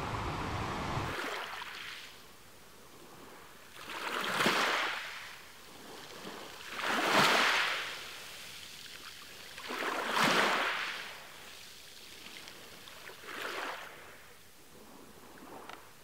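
Steady surf rush for about a second, then small sea waves washing in at close range, four swells about three seconds apart with quieter water between them.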